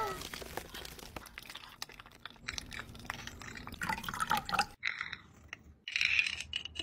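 Light scattered clicks as gummy candies are spooned into a stoneware bowl, then short splashy pours of milk into the bowl about four seconds in and a spoon stirring near the end.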